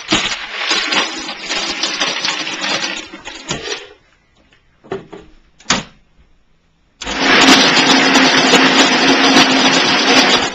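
Electric shaved-ice machine running and shaving ice: a motor hum under a loud, even grinding noise. It stops about four seconds in, followed by a couple of short knocks. It starts again about seven seconds in and runs steadily.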